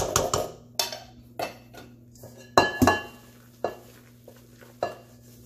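Silicone spatula knocking and scraping against stainless steel mixing bowls as whipped egg whites are scraped in and folded into cake batter. There are several separate clinks, and the loudest pair comes near three seconds in with a brief metallic ring.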